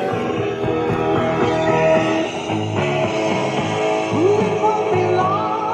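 Rock song playing, with singing over guitar.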